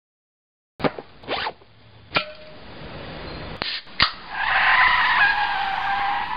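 A sharp click as a beer can's pull tab cracks open, then car tyres squealing loudly for about two seconds as a car skids to a hard stop. A few smaller clicks come before it.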